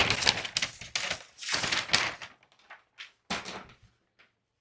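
Cardboard and paper packaging being handled and pulled apart during unboxing, rustling for about two seconds, then one more short rustle and a couple of light knocks.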